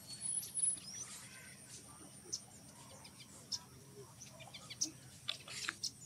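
Quiet forest ambience with scattered short, high chirps and clicks, one of them a quick rising chirp about a second in.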